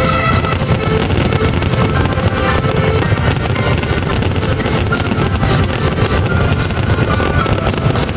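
Fireworks bursting and crackling in a rapid, unbroken stream, with music playing at the same time.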